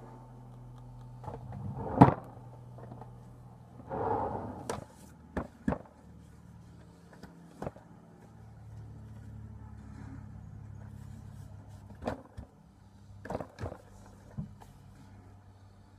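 Clicks and knocks of makeup items being handled, such as an eyeshadow palette being picked up, with the loudest knock about two seconds in and a brief rustle near four seconds. A low steady hum runs underneath.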